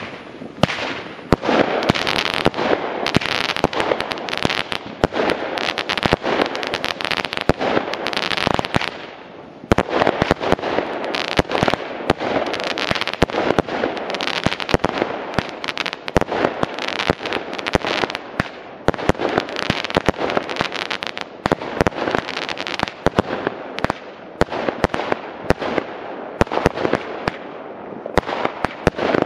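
Firework cake firing a long, rapid barrage: dense launch pops, hissing and crackling star bursts one after another, with a brief lull about nine seconds in before the shots resume.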